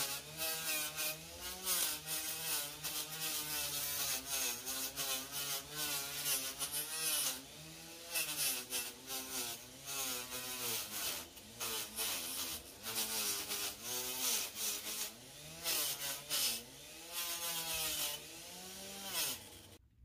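Dremel rotary tool with a small flap sander, run slowly. Its motor hum wavers up and down in pitch, with short bursts of gritty rubbing as the abrasive lightly scuffs the high points of a dyed basswood carving coated in wet polyshade. It stops abruptly just before the end.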